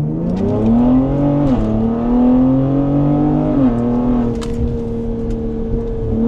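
Ford Explorer ST's twin-turbo 3.0-litre V6 with a 3-inch cat-back exhaust accelerating hard in sport mode, heard from inside the cabin. The engine note climbs, drops at an upshift about a second and a half in, climbs again, drops at a second upshift a little before four seconds in, then holds steady.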